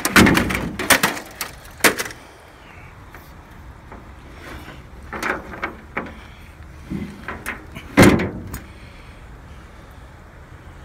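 Hard knocks and scraping clatter of things being shifted about in a truck bed next to a push lawn mower: a burst of clatter at the start, a few scattered knocks in the middle and one loud knock near the end.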